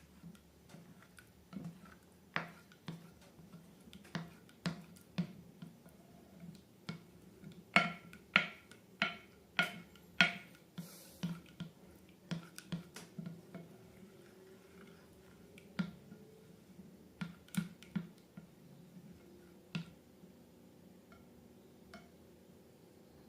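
Slime being handled, giving off a series of sharp, irregular clicks and pops. The clicks are thickest in two runs and thin out near the end.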